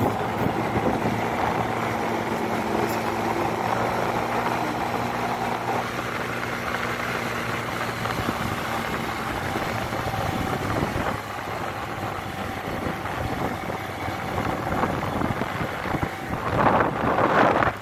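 Small motor scooter engine running as it is ridden along, steady for the first several seconds, then lower, with a brief louder surge near the end.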